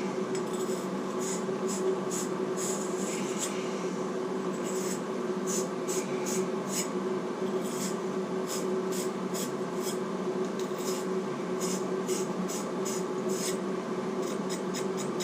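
Abrasive scraping strokes, irregular, one or two a second, as copper pipe and fittings are cleaned up for soldering, over a steady background hum.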